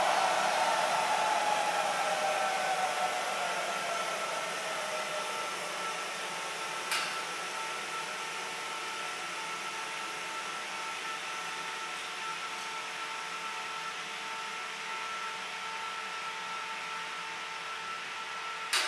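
Homemade turbojet engine spooling down, its whine falling in pitch and level over the first few seconds, then settling to a steady, quieter whine with hiss. Two sharp clicks, about seven seconds in and at the end.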